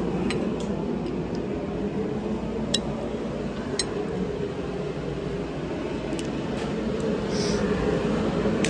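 A steady background hum with a few sharp metallic clicks and clinks of hand tools working on an engine block, scattered a second or more apart.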